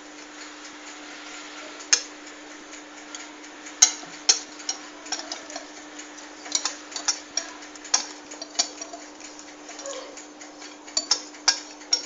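Irregular light clicks and taps of kitchen utensils on a bowl and pan while the chickpea-flour batter is handled, more frequent in the second half, over a steady hum.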